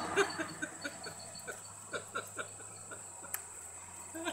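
Beagle puppies play-fighting, giving short squeaky yips and grunts at an uneven pace, with one sharp click about three seconds in.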